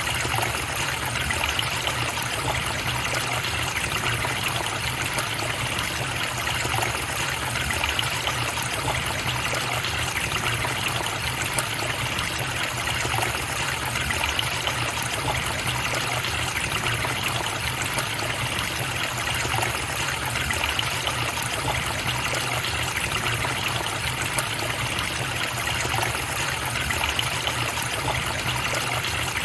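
Water of a river or stream flowing and trickling over stones, a steady even noise with no breaks.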